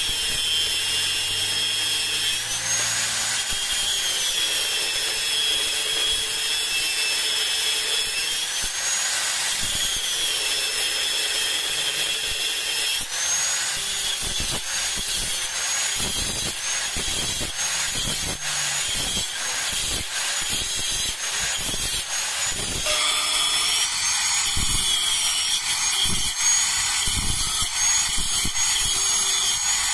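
Angle grinder with a thin cutting disc cutting into a 1-inch steel pipe, notching its end for a welded joint. Its high whine rises and falls in pitch as the disc bites and eases off, and from about halfway it turns choppier, with many short cuts in quick succession.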